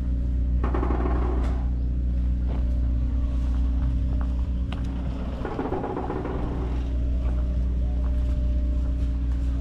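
A large engine idling at a steady pitch, a constant low hum. Brief rustling or handling noise comes about a second in and again about six seconds in.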